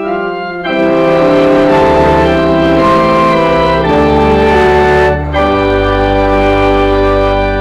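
Organ playing slow, sustained chords, changing chord every second or two. A deep bass note comes in about two-thirds of the way through.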